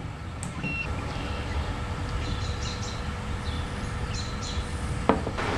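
Outdoor background with birds chirping faintly several times over a steady low rumble, and a single sharp click near the end.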